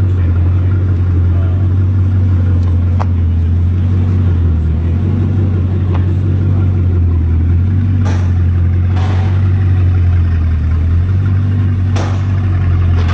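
A vehicle engine idling: a loud, steady low hum, with a few faint clicks over it.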